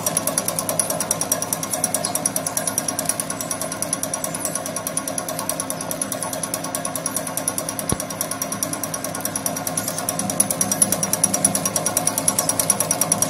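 DSC-3500 corn tube extruder running under load, extruding corn grits into puffed rings: a fast, even rattle over a steady machine hum.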